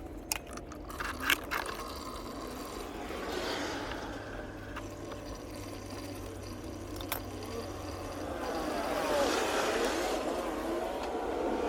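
A few sharp metallic clicks and scrapes as the oil filter is worked loose, then old engine oil draining in a steady splashing stream that grows louder near the end.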